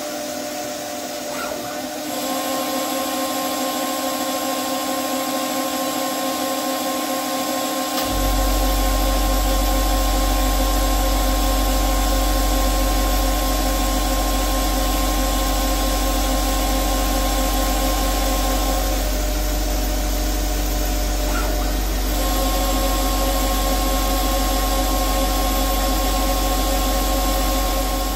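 CNC lathe turning a metal part: a steady whine from the spindle and axis drives over a broad hiss. A deep rumble sets in about a third of the way through and holds. The whine's tones drop out for a few seconds about two-thirds through, then return.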